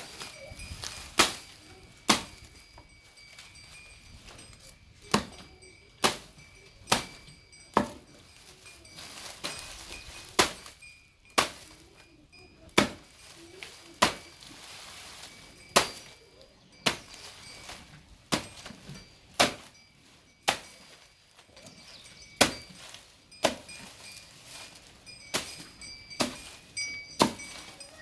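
A desi bull cropping grass: sharp tearing snaps of its bites, irregular, about one every second or two.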